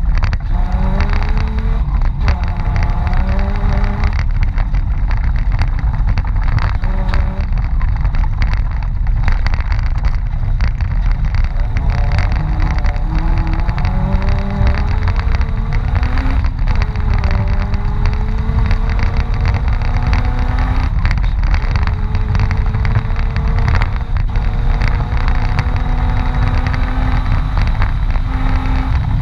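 Mitsubishi Pajero off-road rally truck's engine pulling hard, its pitch climbing and dropping back again and again as it is revved and shifted, under a constant rumble with frequent knocks and rattles.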